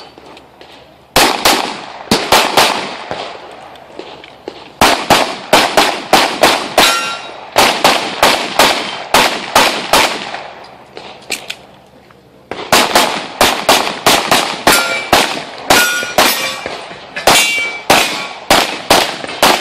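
Rapid semi-automatic pistol fire in quick strings, some shots followed by the ring of steel plates being hit. The firing stops twice for about two seconds, around three and eleven seconds in, as the shooter moves between positions or reloads.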